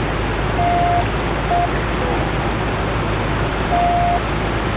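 Steady rush of a mountain river rising in a flash flood, the water swelling gradually. Three short, steady whistle-like tones sound over it, twice in the first two seconds and once near the end.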